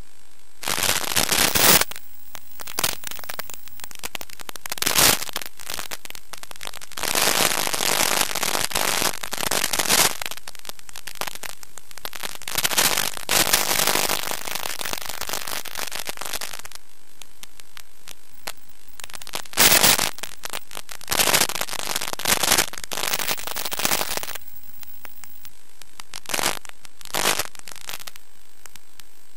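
Static hiss from the audio channel of an analog FPV video receiver, with repeated louder bursts of crackling as the radio signal breaks up. The bursts come thickest in the middle and thin out to a few short ones near the end.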